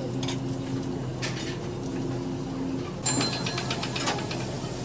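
Steady machine hum of kitchen equipment, with light clicks and handling noises. About three seconds in comes a sharper clatter, then a quick run of ticks.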